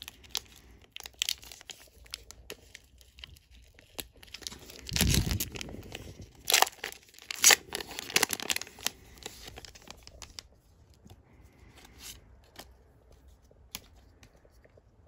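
Foil wrapper of a Pokémon booster pack being torn open and crinkled. The sharpest tearing and crinkling comes between about five and nine seconds in, with lighter rustling and small clicks around it.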